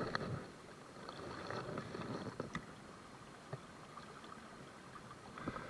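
River current flowing, a faint steady wash of water, with a few faint clicks.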